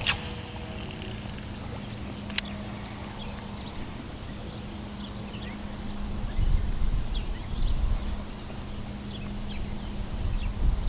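Lakeside ambience: small birds chirping here and there, a faint steady hum, and a couple of sharp clicks, with low rumbling gusts in the second half.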